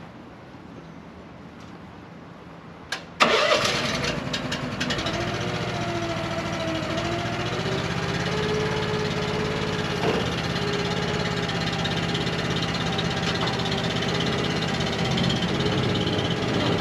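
A vehicle engine cranks and starts about three seconds in, then keeps running steadily at idle.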